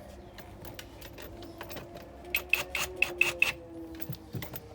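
A screw being tightened by hand into car interior trim: scattered sharp clicks, with a quick run of about five clicks a second near the middle.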